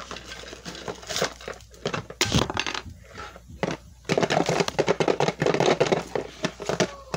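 Lego set packaging crinkling and crackling as it is handled and torn open, with a few sharp clicks early on and a dense, louder spell of crackling about four seconds in.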